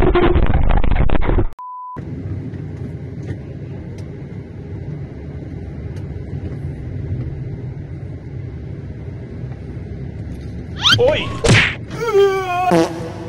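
Loud wind rush on a motorcycle rider's microphone cuts off about a second and a half in, and a brief steady beep follows. Then comes the low, steady hum of road and engine noise heard from inside a moving car. Near the end, several loud cries break in, each sliding down in pitch.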